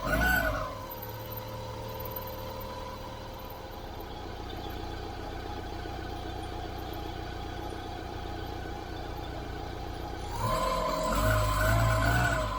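Cold idling engine of a Great Wall Hover H3 with a steady whistle from the drive-belt roller (idler pulley), which swells louder and wavers in pitch at the start and again about ten seconds in. The roller whistles while the engine is cold and goes quiet once it warms up, which the owner takes for a worn roller that needs replacing.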